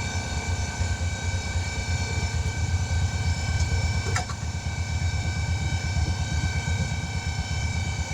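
Air compressor running steadily with a fast-pulsing low rumble, inflating a Jeep Wrangler's tire after a nail-hole repair. A small click about four seconds in.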